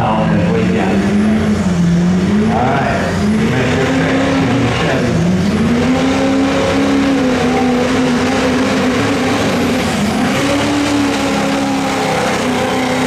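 Diesel engine of a Chevrolet Silverado pickup under full throttle, dragging a pulling sled. The revs sag and climb back two or three times as the sled bogs it down.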